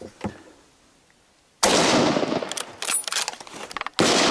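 Two rifle shots about two and a half seconds apart, the first about one and a half seconds in and the second near the end, each ringing on after it, with a few sharp clicks between them.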